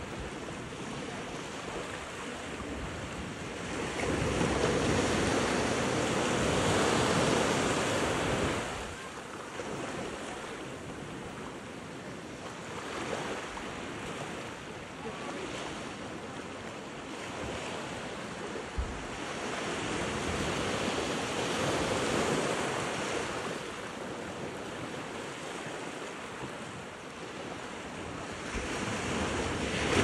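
Small ocean waves breaking and washing up over sand and rounded rocks at the shoreline, the wash rising and falling in long surges, with wind buffeting the microphone.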